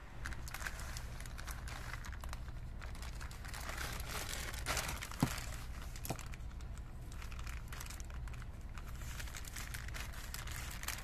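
Plastic courier mailer bag crinkling as it is pressed and handled, with a couple of sharper clicks about five and six seconds in, over a steady low hum.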